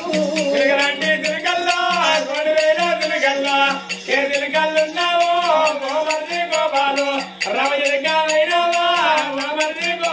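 Oggu Katha folk singing: voices singing a Telugu narrative song in drawn-out, bending phrases, over a steady rhythmic metallic jingling.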